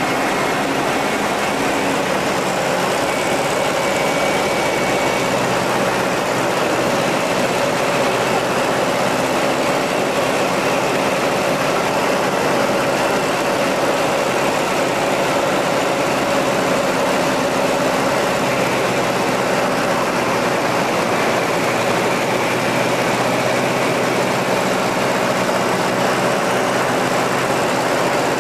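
De Havilland Tiger Moth biplane's engine running at a steady, unchanging drone.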